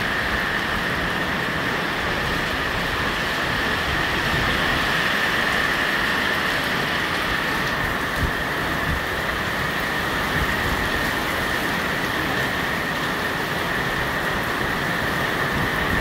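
Heavy rain pouring steadily, a dense even hiss with a low rumble underneath.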